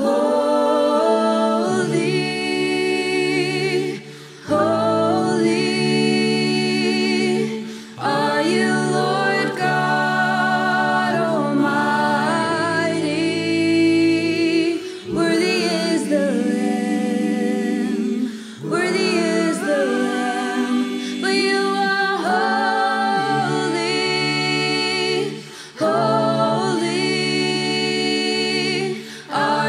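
Worship song sung by voices in phrases a few seconds long, with short breaks between phrases and steady low notes held underneath.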